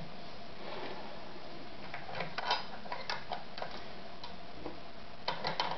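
Sewing-machine mechanism, the 90-degree gear pair under the bed, worked by hand. It gives irregular light clicks and knocks, a run of them a couple of seconds in and a quick cluster near the end. This is the rattle of backlash between the gears, which the repairer names as the machine's source of noise.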